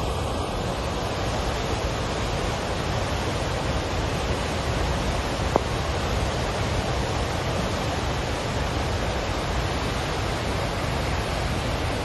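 Steady rushing of a river in flood pouring over a waterfall and churning through the gorge below, with one short click about halfway through.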